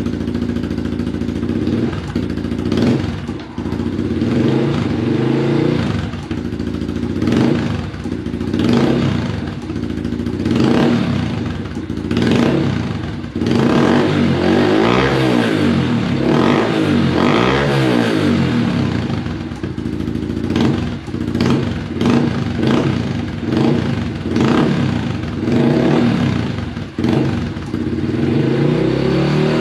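Honda CRF110's small single-cylinder four-stroke engine, fitted with a Pro Circuit T6 aftermarket exhaust, idling and revved again and again with throttle blips that rise and fall in pitch, with a growl to it.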